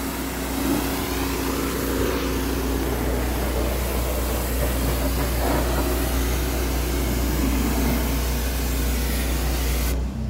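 Pressure washer spraying a hard jet of water into a car's wheel well: a steady hiss of spray over the low, even hum of the machine. Near the end the spray stops for about a second while the hum carries on.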